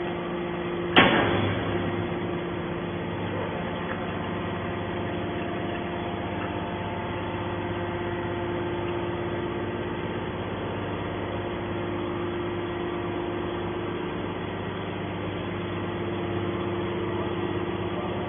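Hydraulic scrap metal baler running: a loud bang about a second in, then a steady hum of the hydraulic power unit with several constant tones.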